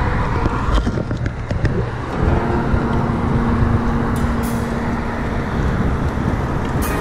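Road traffic noise: a steady rumble of passing vehicles, with one vehicle going by in a falling pitch about a second and a half in.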